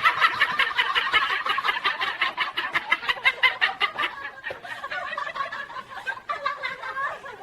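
Parrot cackling in a rapid run of clipped, clucking pulses, about eight a second, which grows weaker after about four seconds.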